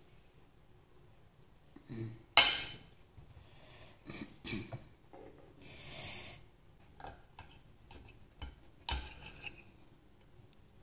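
Knife and fork clinking and knocking against a ceramic plate as crispbread topped with salami is cut, in scattered separate strokes. The loudest is a sharp clink about two and a half seconds in.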